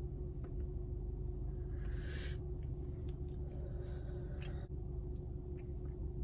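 A person smoking a joint: breathy drawing and exhaling of smoke, with the longest breath about two seconds in, over a steady low hum.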